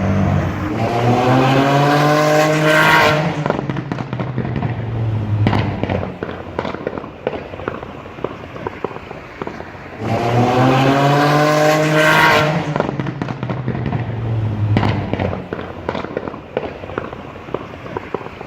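9ff-tuned Porsche Turbo flat-six revved twice, the pitch rising each time before the throttle snaps shut, then a long run of exhaust crackles and pops on the overrun: misfires that thin out until the next rev.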